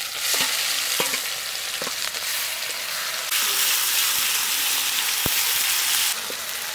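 Spice paste sizzling and frying in hot mustard oil in a metal kadai as a spatula stirs it, with a few light clicks of the spatula on the pan. The sizzle is louder for a few seconds in the middle.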